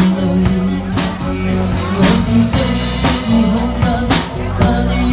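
Live band playing a pop song: drum kit keeping a steady beat under guitar and bass.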